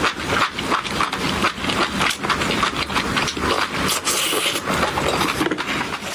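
Close-miked eating sounds of a person eating spicy food: a dense, continuous run of wet chewing and mouth noises.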